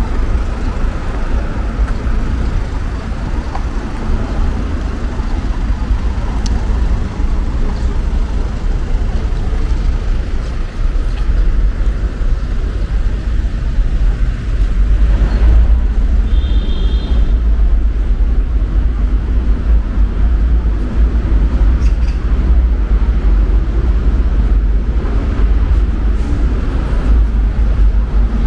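City street traffic: a steady rumble of passing vehicles, with a short high beep about two-thirds of the way through.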